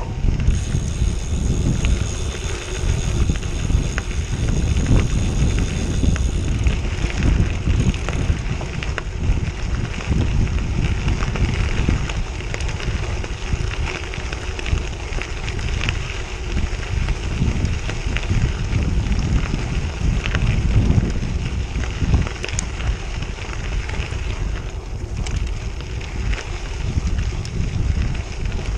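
Bicycle tyres crunching and crackling over a loose gravel road, with wind buffeting the microphone.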